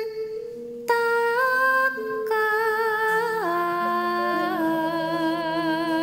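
Background music: a slow hummed melody of long held notes that step up and down, coming in about a second in.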